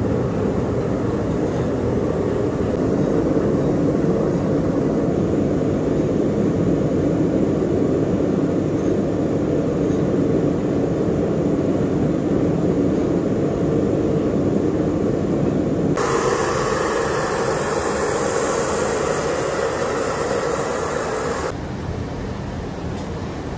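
Steady, loud mechanical rumble. About two-thirds of the way through it switches abruptly to a harsher hiss, then drops to a quieter rumble near the end.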